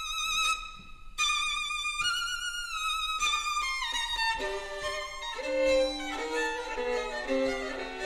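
Background music: a violin melody played with vibrato. A high line steps down in pitch, then it moves to lower notes from about halfway.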